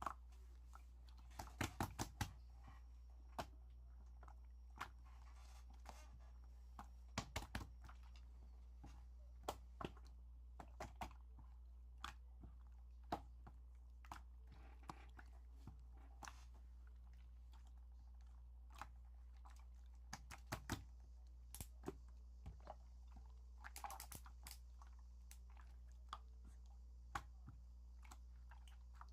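Slime being squished and pressed by hand: irregular sticky clicks and small pops, sometimes several in quick succession, over a faint steady low hum.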